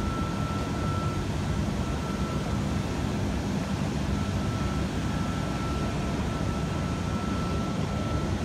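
NSW TrainLink V-set double-deck electric train standing at the platform with its onboard equipment running. It gives a steady hum and rumble with a thin high whine over it.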